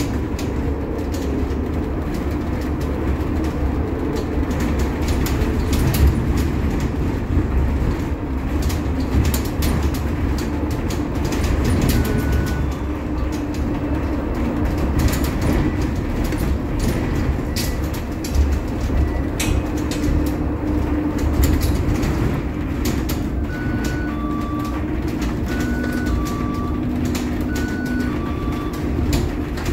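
Interior ride noise of a Scania/Higer Fencer F1 battery-electric bus underway: a steady low road rumble with frequent rattles and clicks from the body and fittings. Near the end, a repeating high-low two-tone beep.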